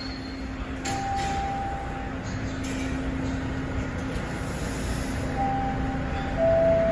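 Bombardier T1 subway train standing at the platform with a steady electrical hum. A single chime tone sounds about a second in, and near the end a door-closing chime of descending notes begins.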